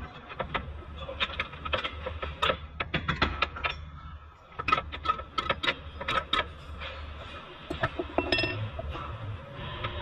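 Irregular metallic clanks, knocks and short ringing clinks of a steel front lower control arm on a Hyundai Elantra being worked and pushed into its mounts by hand.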